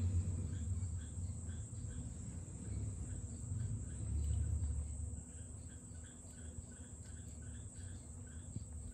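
Insects, most likely crickets, chirping in a steady rhythm of about two chirps a second, over a low rumble that swells briefly twice.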